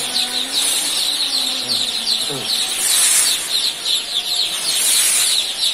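A large flock of young joper chicks peeping continuously: many overlapping, rapid high-pitched cheeps.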